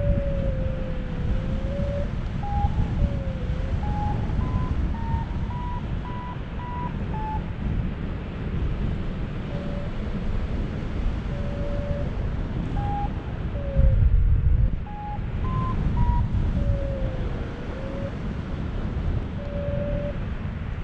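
Paragliding variometer beeping in short tones that step higher and lower in pitch, with a few tones sliding downward, over steady wind rushing on the microphone. The beep pitch follows the glider's climb and sink in the air. A louder gust of wind hits about fourteen seconds in.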